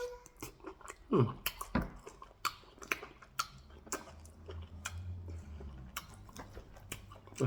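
Close-up chewing and wet mouth smacks from someone eating eba (garri) with peanut soup: a string of short, irregular clicks.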